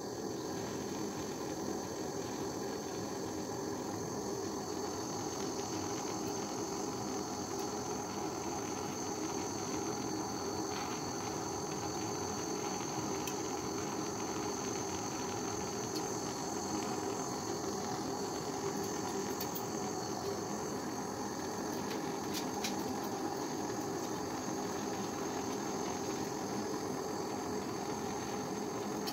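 Handheld gas torch burning steadily, a constant hissing flame directed into a steel crucible to melt silver scrap.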